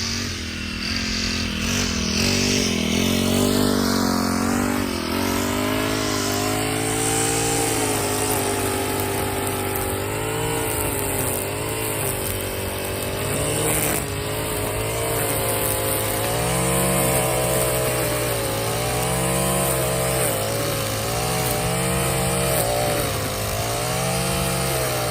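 Gas string trimmer's two-stroke engine running under throttle while cutting weeds, its pitch rising and falling over and over as the throttle is worked.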